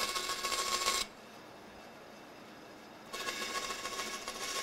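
Bandsaw cutting through a thin, bent wooden spoon blank: two short cuts, each a dense hiss with a steady high tone. The first cut ends about a second in, and the second starts about three seconds in.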